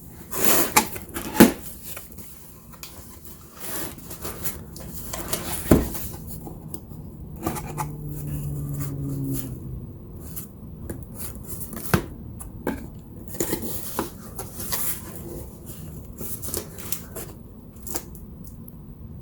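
A cardboard box and its packaging being opened and handled by hand: irregular rustling, scraping and sharp knocks, with one longer pitched sound lasting a second or so midway through.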